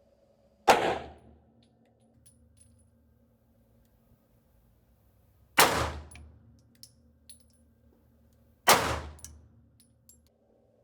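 Three single shots from a Smith & Wesson M&P 9mm pistol, slow aimed fire several seconds apart: one about a second in, one past the middle and one near the end. Each is a sharp crack with a short ringing tail, and faint light clinks come between the shots.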